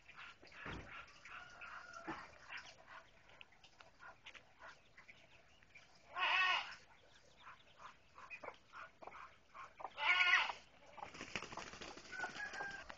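Muscovy ducklings peeping again and again, with two loud pitched squawks from an adult fowl about six and ten seconds in. Near the end a Muscovy duck flaps its wings in a short rustle.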